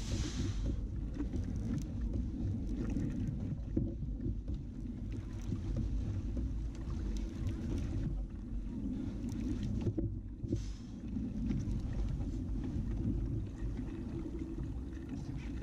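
Muffled low rumble of wind and water around a fishing kayak, heard through a mounted camera, with two brief hisses: one at the start and one about ten seconds in.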